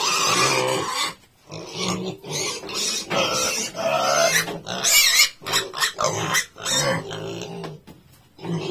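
Piglets grunting in a run of short calls with brief pauses, the loudest a high squeal about five seconds in.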